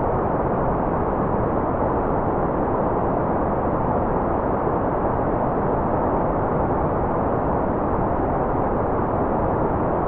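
Continuous synthetic white noise: an even, unchanging hiss, dull rather than bright, with its weight in the low and middle range.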